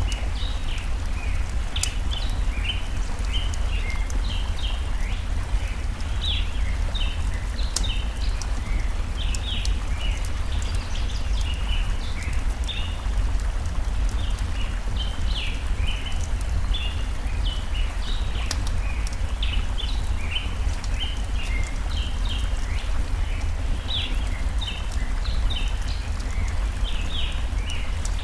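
Birds chirping busily, many short calls a second, over the steady rush of a flowing stream, with an occasional sharp crackle from a campfire.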